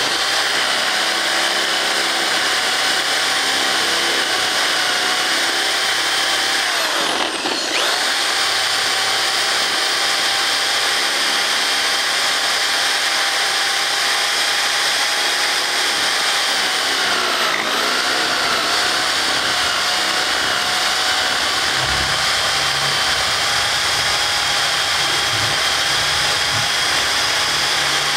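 Electric drill running steadily as its bit bores down through a stack of paperback books, chewing the paper into shreds. Its whine sags briefly in pitch twice under load, about a quarter of the way in and again past the middle, then picks back up.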